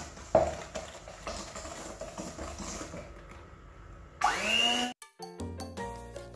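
Electric hand mixer beating eggs and sugar in a stainless steel bowl: a steady motor hum with the beaters churning the mix. This is the stage where the eggs are whipped until they double in volume and turn pale. About four seconds in, a short rising sound cuts in, followed by upbeat music with a beat.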